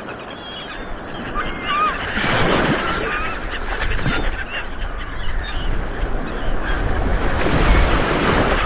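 Ocean waves rolling in, with surf surging up about two seconds in and again more strongly near the end. Birds call over it with many short, curving cries through the first few seconds.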